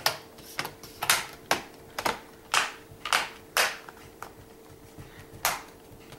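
Plastic display bezel of a Dell Vostro 1520 laptop snapping onto the screen lid as it is pressed into place. About ten sharp clicks come roughly every half second, with a longer pause before the last one.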